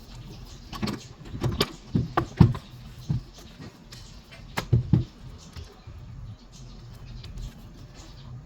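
Irregular knocks and clinks, about a dozen, mostly in the first five seconds, over a steady low hum.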